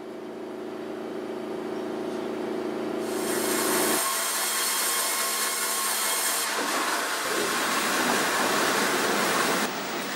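Sawmill machinery running: a steady machine hum that gives way, about four seconds in, to a denser noisy sound of wood being handled and sawn.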